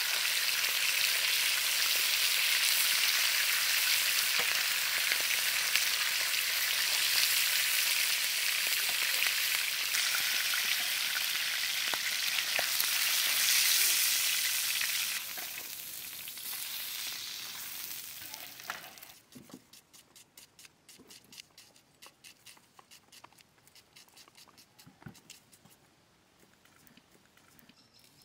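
Pangas fish pieces frying in hot oil in a black karahi: a loud, even sizzle as a spatula stirs and turns them. The sizzle falls away about fifteen to nineteen seconds in, leaving only faint scattered ticks.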